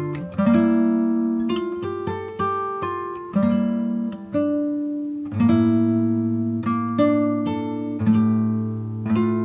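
Acoustic guitar playing: plucked chords and single notes, a new chord struck about every second, each ringing and fading.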